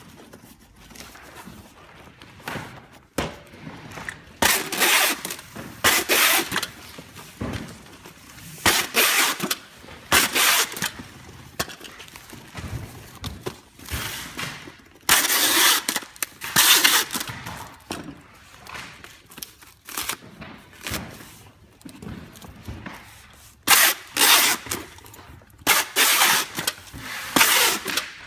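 Packing tape being pulled off a handheld tape gun and run along a cardboard box, a series of loud tearing screeches, each about a second long, repeated a dozen or so times with rustling cardboard between.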